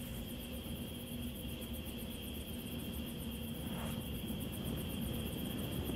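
Crickets trilling steadily, with a fast, even, high pulsing, over a low steady rumble.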